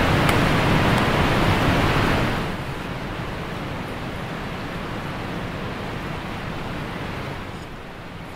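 Rushing river water of a rapid around an inflatable raft, a steady noisy rush that drops off after about two and a half seconds to a quieter, duller rush.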